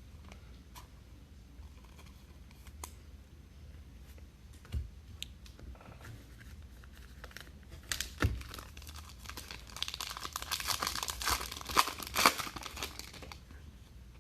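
Plastic wrapping of a trading card pack being torn open and crinkled: a dense run of crackling from about halfway through, loudest toward the end. Before that there are only a few light taps.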